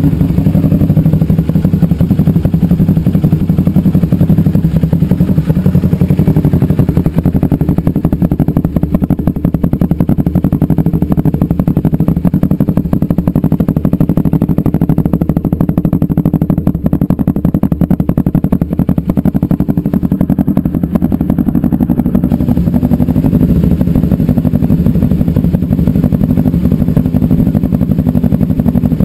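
2012 Kawasaki Ninja 250R's parallel-twin engine idling steadily, warmed up.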